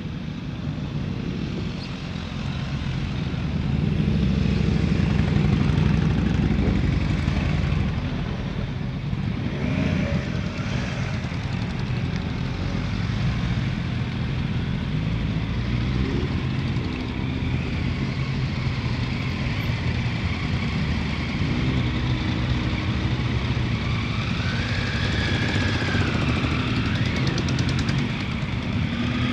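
A line of motorcycles riding slowly past one after another and pulling up, engines running at low revs, the nearest loudest about four to six seconds in.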